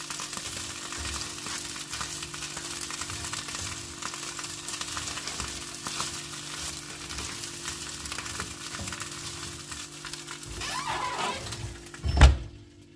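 Red peppers, chillies and garlic sizzling and crackling in oil on a foil-lined tray in a hot oven, over a steady low hum. About twelve seconds in comes a single loud thump as the oven door is shut.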